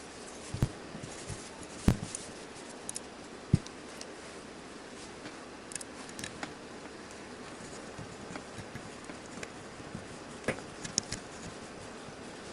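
Scattered small clicks and taps of a disassembled folding knife's metal parts and screws being handled, over a steady background hiss. The sharpest clicks come about two seconds in and again about three and a half seconds in.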